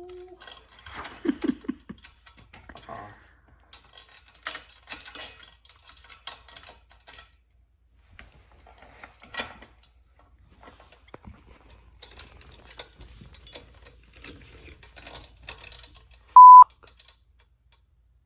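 Metal bike parts and hand tools clicking and rattling in irregular bursts as BMX parts are bolted on. Near the end a short, loud electronic beep cuts in.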